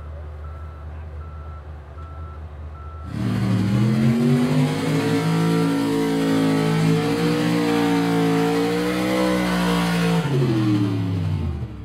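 A backup alarm beeping steadily over an idling machine, then, about three seconds in, a square-body Chevrolet mud-racing pickup at full throttle through the speed pit, its engine at high revs with the pitch wavering and falling away near the end.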